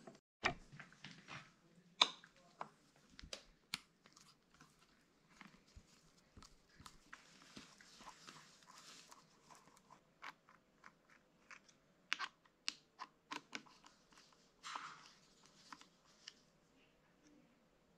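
Scattered light clicks and taps of hand tools working on a motorcycle's hydraulic clutch: a spanner on the slave-cylinder bleed screw, then a screwdriver undoing the reservoir cap screws on the handlebar master cylinder. A few sharper clicks stand out among the quiet handling sounds.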